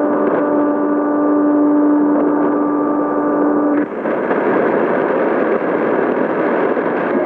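Shortwave receiver's AM audio while tuning across the 60-metre band: static hiss with a steady low tone and a few fainter higher tones, which drop out about four seconds in and leave a wider hiss of band noise as the dial moves lower.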